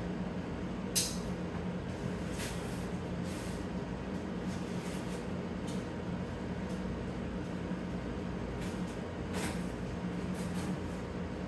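Steady low machine hum in the room, with a few short scrapes and knocks from a large cardboard shipping box being handled and opened.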